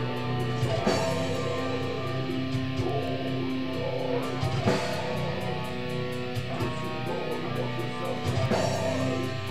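Heavy metal band music: distorted electric guitar holding chords over drums, with a cymbal crash about every four seconds.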